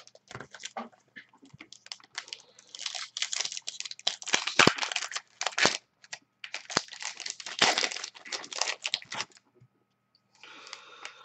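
Foil wrappers of trading card packs crinkling and tearing as a pack is handled and opened by hand, in a run of rustling bursts that stops briefly about a second before the end and then resumes more softly.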